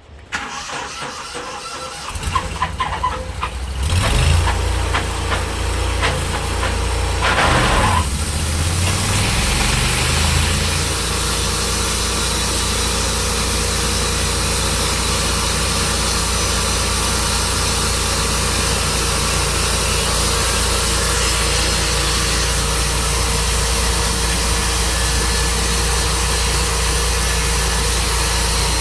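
Tru Cut sawmill's gasoline engine starting up, revving unevenly a few times over the first eight seconds, then settling into a steady run.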